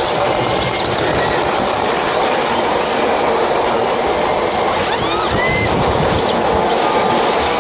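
Several RC drift cars sliding in a tight line on a smooth indoor track: a steady rushing noise from their motors and hard plastic tyres, with brief rising-and-falling tyre squeals now and then, several of them around the middle.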